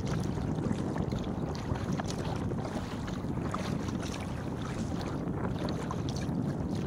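Wind buffeting the microphone, with water splashing and lapping against a kayak's hull as it is paddled through choppy water.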